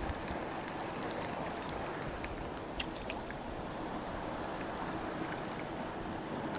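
Steady wash of water at a shoreline, with a thin steady high whine and a few light clicks scattered through it.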